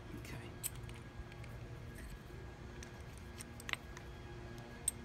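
A few light metallic clicks and clinks of hand tools, a flat screwdriver and a multi-spanner, being picked up and handled, over a low steady background hum.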